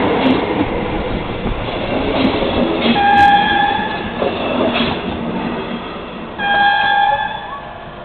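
Red DB double-deck passenger coaches rolling past on the rails as the train pulls out of the station, fading as it moves away. Two short high tones sound, about three seconds in and again about six and a half seconds in.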